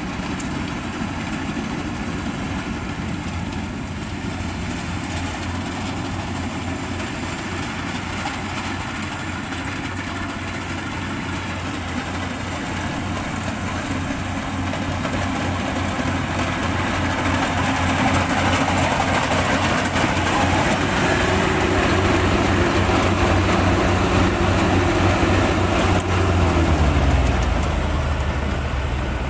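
Yanmar AW70V rice combine harvester's diesel engine running steadily under harvesting load. It grows louder about halfway through, and near the end its note falls sharply as the engine slows down.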